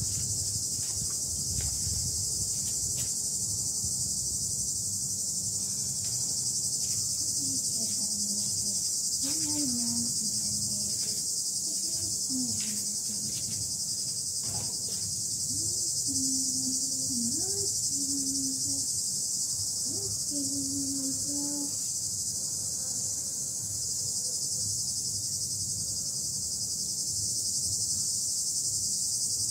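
Steady, high-pitched chorus of insects. A few short, low calls sound through the middle stretch, and there are faint scattered clicks.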